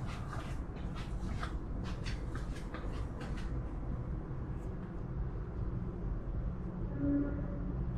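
Irregular light clicks and knocks for the first three or four seconds, over a steady low hum, with a brief short tone about seven seconds in.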